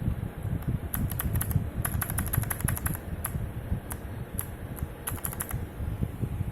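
Typing on a mechanical keyboard with clicky, tactile Outemu Blue switches: irregular runs of sharp key clicks, starting about a second in and stopping a second before the end. A steady low rumble sits underneath.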